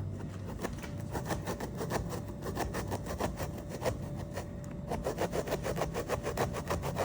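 Small saw blade of a camping axe-hammer multitool sawing back and forth in quick rasping strokes, which speed up about five seconds in.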